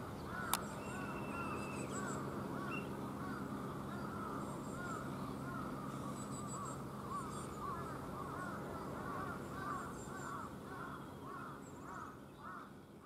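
Distant birds calling: many short, arching calls repeat irregularly, overlapping, about one or two a second, over a steady low hum. A single sharp click sounds about half a second in.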